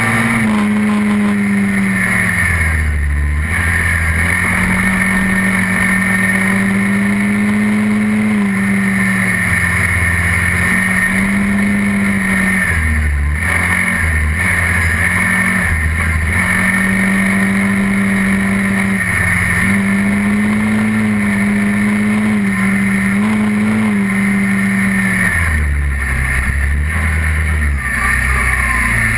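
ATV engine heard from on board while riding, running steadily and easing off then picking up again several times as the throttle is rolled off and back on, with intermittent wind rumble on the microphone.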